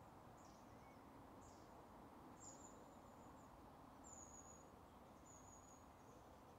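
Near silence: faint outdoor hiss with a string of short, high-pitched insect chirps, about one a second.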